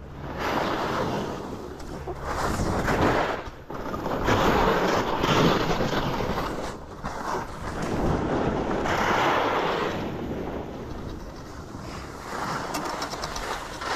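Skis scraping and hissing over snow through a run of turns, with wind rushing over the microphone; the noise swells and fades every second or two.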